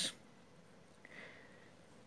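Near silence: quiet room tone in a pause between a man's spoken phrases, with the tail of his last word at the very start and one faint, brief sound about a second in.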